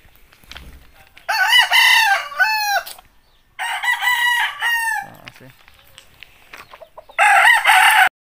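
Gamefowl roosters crowing three times, each crow about a second and a half long; the third crow is cut off short near the end.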